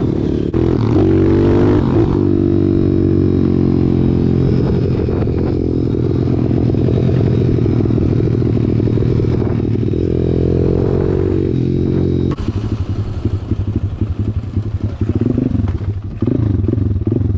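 Pit bike single-cylinder engines running under way, the engine note rising and falling as the rider accelerates and shifts. After about twelve seconds the sound changes abruptly to a choppier, uneven engine sound.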